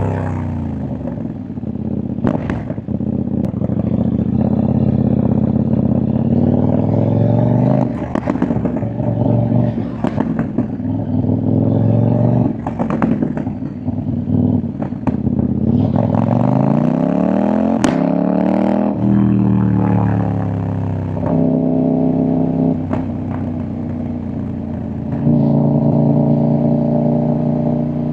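CFMOTO 800NK parallel-twin engine and exhaust on the move: it revs up and down through the gears and settles to a steady cruise in the second half. Sharp exhaust pops and crackles come again and again as the throttle is rolled off.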